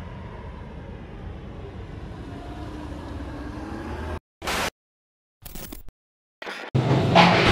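A car passing on a street, its engine note rising, over steady low traffic noise. About four seconds in the sound cuts off abruptly, followed by short choppy bursts with silences between and a loud burst near the end.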